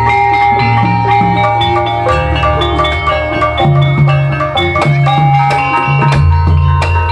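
Instrumental gamelan music accompanying an ebeg (kuda lumping) dance: ringing struck keyed tones over quick drum strokes and a low bass line that shifts near the end.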